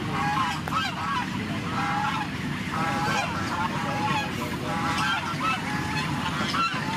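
Birds calling over and over in short, overlapping calls, over the steady low running of a combine harvester engine.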